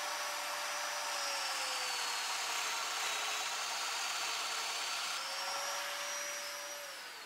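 Festool Domino joiner cutting a mortise in hardwood: its motor runs with a steady whine that sags in pitch while the cutter is plunged into the wood, jumps back up about five seconds in as it is withdrawn, and winds down near the end.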